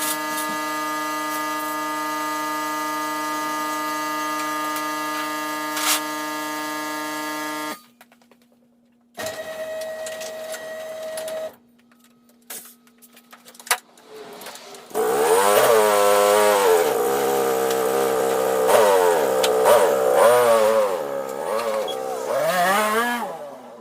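Polaris Trail Boss 330 ATV engine: a steady drone for about eight seconds that cuts off abruptly, then from about fifteen seconds in the engine revving up and down repeatedly as the quad is ridden.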